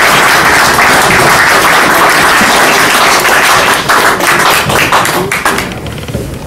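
Audience applauding, a dense round of clapping that thins to a few scattered claps about five and a half seconds in and dies away near the end.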